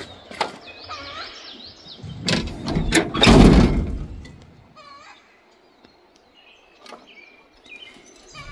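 Wild birds chirping and singing in the background, with a few sharp knocks and clicks and one loud, brief rush of noise about three seconds in.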